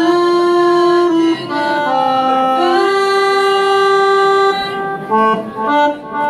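A small group of young voices singing the closing held notes of a song through microphones and a PA. Near the end a few shorter notes finish it off.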